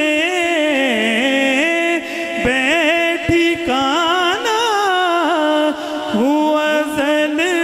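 A male naat reciter singing unaccompanied, holding a long ornamented phrase whose pitch slides and wavers up and down without a break.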